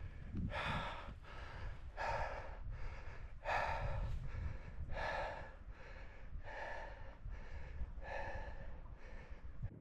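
A man panting hard, about a dozen quick, heavy breaths in and out at an even pace, out of breath from scrambling up a steep mountain pass. A low wind rumble on the microphone runs beneath.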